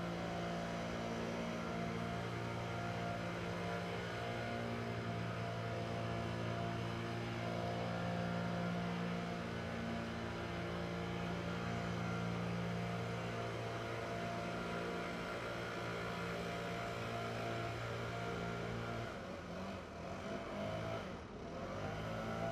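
Leaf blowers running with a steady engine drone. Near the end the engine note drops and wavers for a couple of seconds, then comes back up.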